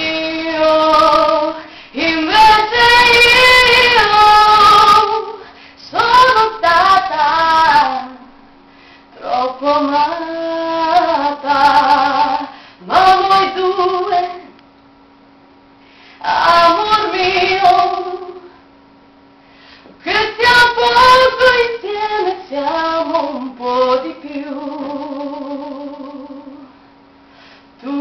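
A female singer singing a song in Spanish, in phrases of a few seconds each with short breaks between them.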